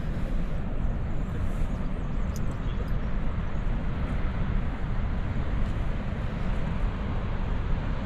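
Steady low roar of heavy big-wave surf breaking along the beach, mixed with wind rushing over the microphone.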